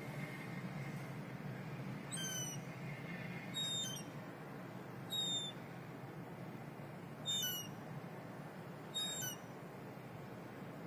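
Juvenile gull giving short, high, thin descending peeping calls, five in a row about every one and a half to two seconds, over a steady low background hum.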